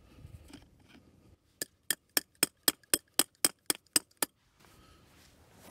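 About eleven sharp metallic taps in a quick even run, roughly four a second, starting about one and a half seconds in: a battery cable terminal being tapped down onto its post with a metal tool.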